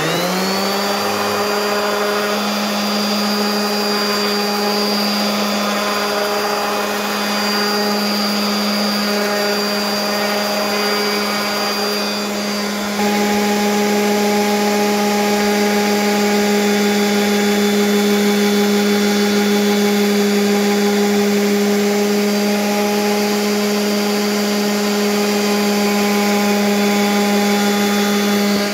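DeWalt random orbital sander starting up, its motor quickly winding up to a steady hum, then running as it sands a wooden board. It gets a little louder about halfway through.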